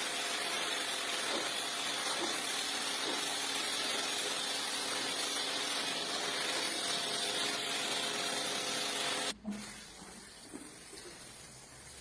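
Water spraying steadily onto a rug with a faint machine hum under it, cutting off suddenly about nine seconds in and leaving a quieter trickle.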